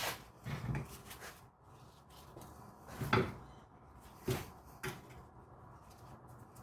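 Five or so separate clunks and knocks of tools and metal brake parts being handled while a rear disc brake caliper and its pads are taken off, the loudest about three seconds in.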